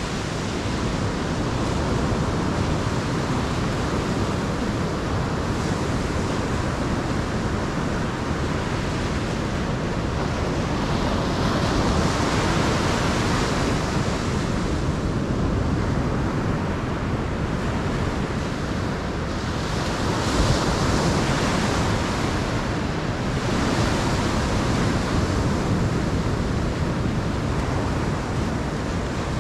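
Ocean surf breaking and washing up the beach, a steady rush that swells several times as waves come in, with wind buffeting the microphone.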